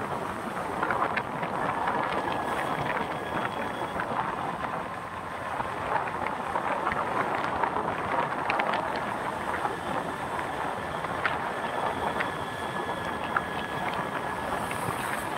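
Road and traffic noise from a vehicle on the move: a steady rush with scattered small clicks, and a faint thin whine holding steady through the second half.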